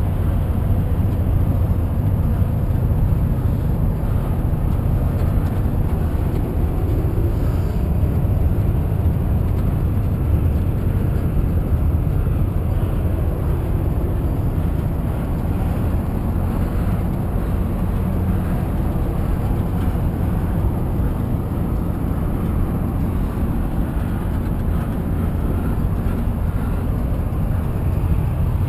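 Steady engine and road rumble inside a moving coach bus at highway speed.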